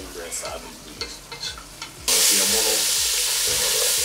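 Wooden spatula stirring and scraping beef and sliced onions frying in oil in a pot, with soft sizzling and light clicks of the spatula on the pot. About halfway the sizzle jumps suddenly to a loud, steady hiss.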